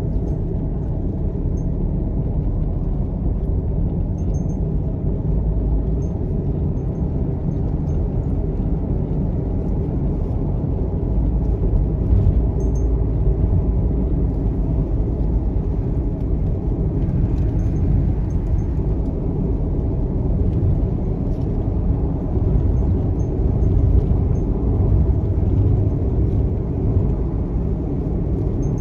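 Steady low rumble of tyres and engine inside a car cabin at highway speed on a wet road.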